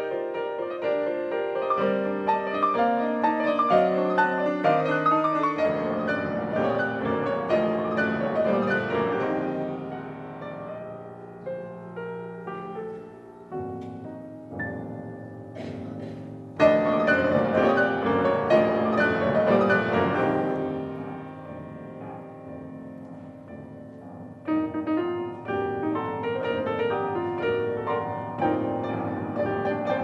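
Six grand pianos played together by a twelve-pianist ensemble in a busy contemporary piece of quick, repeated notes. The texture thins a little before halfway, then the full ensemble comes back in suddenly and loudly, and again about eight seconds later.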